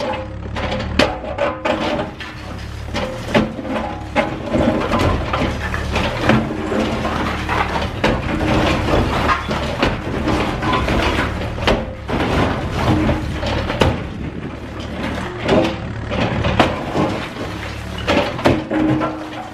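A mini excavator's diesel engine runs steadily while it breaks up a concrete and steel building, with many irregular knocks, crunches and clanks of concrete and rebar being struck and torn. Background music plays along with it.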